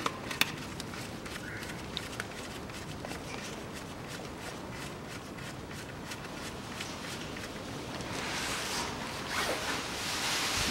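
Small ratchet driver clicking in a long run of quick, light ticks while loosening a hose clamp on the engine's intake air duct, with a few sharper clicks at the start. Near the end the ticking gives way to a louder rustling as the duct and paper are handled.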